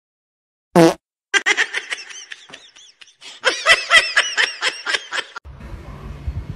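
A person laughing in a quick run of short bursts, quieter at first and then louder, stopping suddenly.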